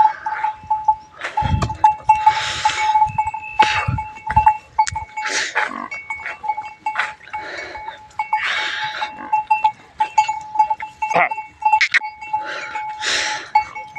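Bells on a herd of zebu cattle ringing steadily in small pulses as the animals walk, with repeated rustling and crunching of steps on dry ground and brush.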